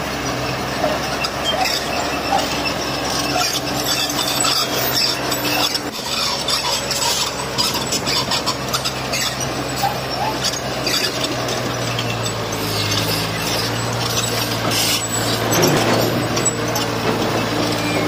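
Komatsu crawler bulldozer working: a steady diesel engine note under squealing, scraping and clattering from the tracks and the stone being pushed. The engine note grows stronger about two-thirds of the way through.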